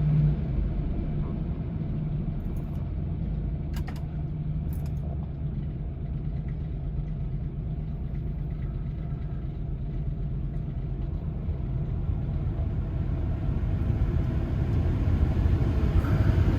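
Ford Expedition's 4.6-litre V8 idling steadily, with a couple of faint clicks about four and five seconds in. The engine is being checked for a rattle under the hood; only a slight noise is noticed.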